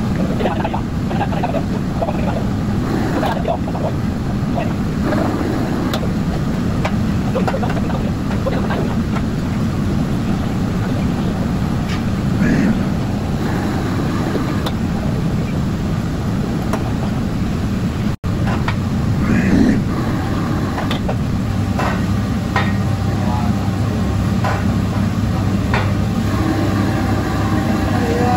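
Steady roar of a commercial gas wok burner and kitchen exhaust hood. In the second half a metal ladle clinks and scrapes against the wok, and voices murmur in the background.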